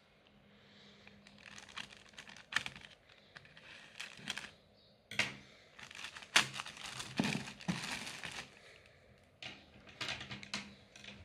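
A clear plastic bag wrapped around a cardboard parcel crinkling and rustling as it is handled, in irregular bursts of crackles. The loudest crackles come about six to eight seconds in.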